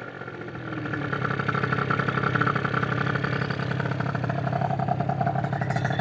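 Tuned 70cc two-stroke Minarelli engine of an MBK Booster scooter revving with its rear wheel spinning free on a stand. The revs build slowly over the first second and then hold steady, with a higher note coming in near the end. It is slow to pick up speed, which the owner puts down to the rotating mass it has to spin up.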